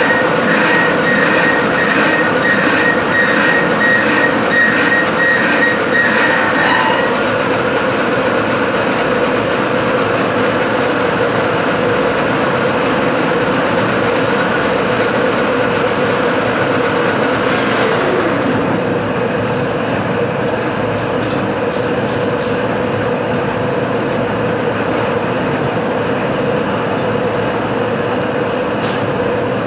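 Metalworking machine tool running steadily with a constant hum and a held tone. A higher tone pulses about twice a second and stops about seven seconds in. About two-thirds through there is a short falling whine, followed by a few clicks.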